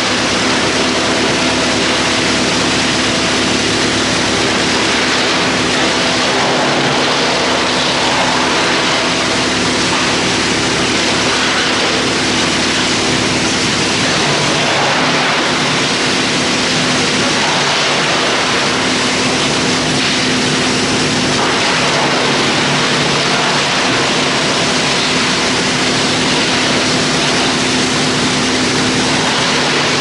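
YGX218 industrial drum wood chipper driven by its 110 kW electric motor, running continuously: a loud, even rush of noise with a steady hum underneath.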